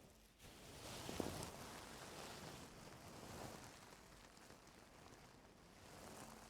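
Faint rustling and scraping of ear-cleaning tools working in an ear close to the microphone, loudest about a second in, then softer.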